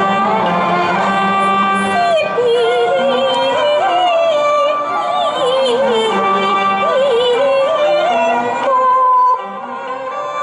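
Cantonese opera singing with live Chinese instrumental accompaniment: a high voice sings a wavering, ornamented melody with vibrato over steady bowed strings. The music drops away sharply about nine seconds in.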